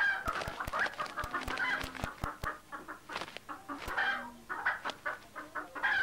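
Domestic hens calling during a pecking-order fight, with many short sharp clicks scattered throughout.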